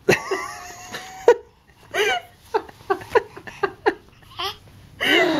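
Laughter in a string of short bursts, mixed with a baby's babbling and vocal squeals.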